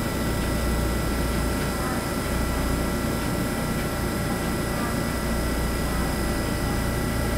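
TRA EMU3000 electric multiple unit standing at the platform, giving a steady hum: a low rumble with two thin, steady high tones over it.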